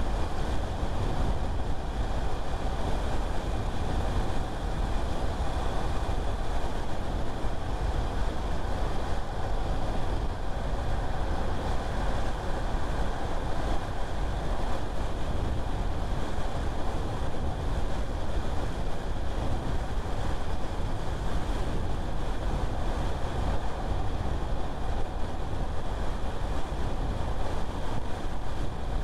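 Car driving at a steady speed: a continuous mix of tyre, engine and wind noise, heaviest in the low end, with no changes.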